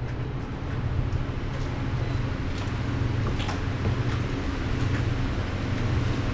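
An engine running steadily with a low, even drone.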